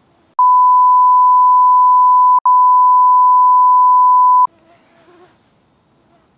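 Censor bleep: a loud, pure, steady beep tone lasting about four seconds, broken once briefly about halfway through.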